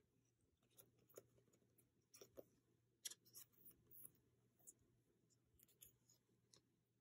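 Very faint rustling and small scattered clicks of a photocard being handled and slid against a clear plastic card sleeve.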